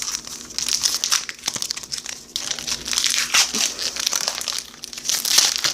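Plastic trading-card pack wrapper being torn open and crinkled by hand, an irregular crackling rustle with many small sharp crackles.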